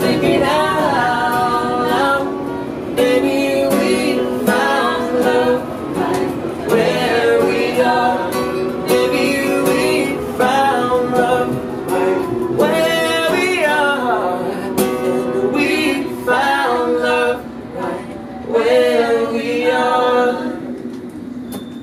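A live vocal with acoustic guitar accompaniment: a voice singing long gliding phrases over a played acoustic guitar.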